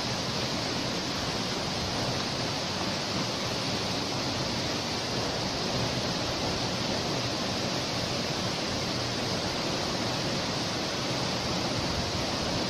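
Waterfall rushing steadily: an even, unbroken hiss of falling water that holds the same level throughout.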